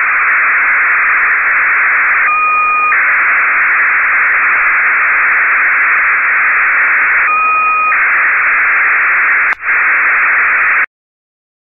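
NAYIF-1 satellite's BPSK telemetry downlink heard through an Icom transceiver in upper sideband: a steady, loud hissing buzz. Twice, about five seconds apart, it changes for about half a second to a pair of steady tones. The signal cuts off suddenly near the end.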